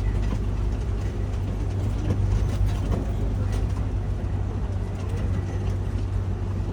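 Safari ride truck driving along its track: a steady low engine and road rumble, with light scattered knocks and rattles, heard from aboard the truck.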